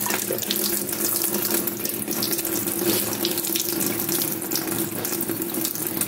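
Kitchen tap running steadily into the brimming upper chamber of a stovetop moka pot, the water splashing around the central spout and spilling over into the sink, with a faint steady low tone under it.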